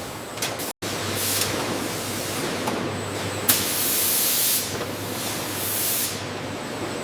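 Production-line machinery running with a steady low hum, broken by bursts of hissing like compressed air or spray: one short burst just after the first second, a longer one of about a second in the middle, and another shortly before the end.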